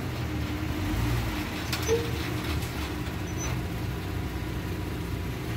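Dodge Charger's engine idling low and steady as the car sits on a car trailer during loading, with a single short knock about two seconds in.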